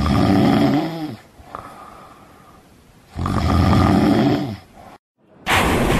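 A person snoring: two long snores about three seconds apart, each sliding down in pitch as it ends. Near the end, after a sudden cut, a loud whooshing sound starts.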